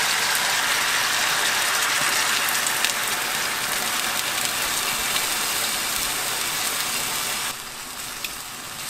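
Soy-sauce braising sauce, just poured over browned chicken thighs in a hot frying pan, sizzling and bubbling as it starts to reduce: a dense, steady hiss with faint crackles. It gets quieter about seven and a half seconds in.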